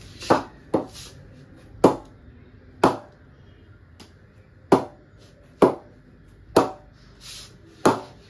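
A leather cricket ball knocked against the face of an SS Vintage Jaguar willow cricket bat, eight sharp knocks about a second apart, each with a short ring. This is a ping test of the blade's response, and the bat is judged very good for ping.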